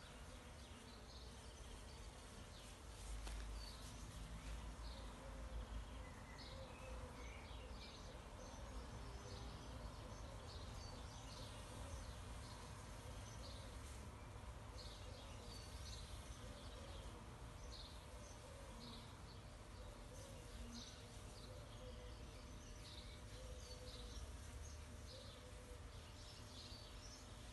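Faint buzzing hum of a small honeybee swarm clustered at a hive entrance, the bees fanning their wings to call the rest of the cluster inside. Birds chirp in short repeated calls over it, with a low rumble underneath.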